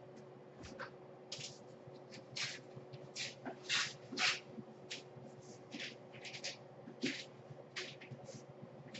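A series of short, irregular rustling and scraping noises, about fifteen in a row at uneven intervals, over a steady low hum.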